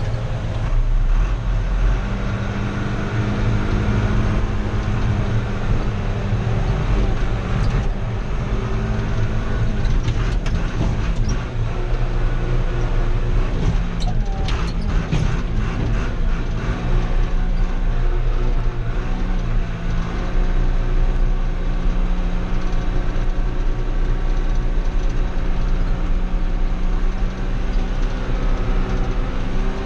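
An old John Deere loader tractor's diesel engine running steadily under way, heard from inside its cab. The engine note shifts slightly about two seconds in and again about two-thirds of the way through, and a few knocks and rattles come around the middle.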